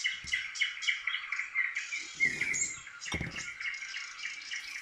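Small birds chirping and twittering continuously, with two brief dull knocks about two and three seconds in.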